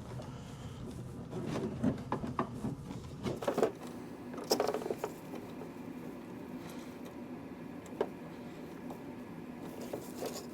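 Small clicks, taps and scraping as a tremolo potentiometer on a Wurlitzer 200A electric piano is worked by hand and tool to straighten its off-centre shaft. The handling is busiest in the first half, then there is a single sharp click near the end.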